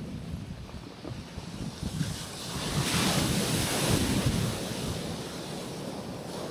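A gentle wave breaks and washes onto a rocky shore. It swells about two seconds in and fades a couple of seconds later, with wind rumbling on the microphone throughout.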